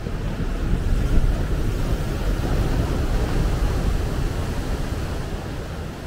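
Pacific Ocean surf: a wave breaking and its foam rushing up a sandy beach. The wash swells about half a second in, holds, and eases off near the end.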